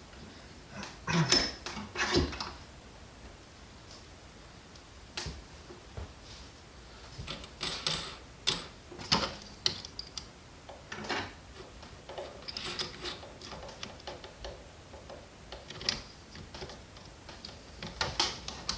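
Irregular clicks, taps and short rattles of hard parts being handled and fitted together on a workbench, loudest about a second and two seconds in and in clusters around eight to nine seconds in.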